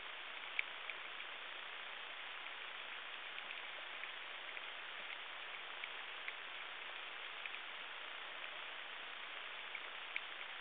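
Underwater ambience heard through a camera housing: a steady hiss with scattered, irregular sharp clicks.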